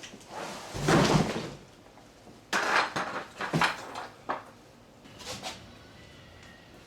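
Packaging and loose generator parts being handled: a series of scrapes and knocks, the loudest about a second in, then several shorter ones that die away after about five seconds.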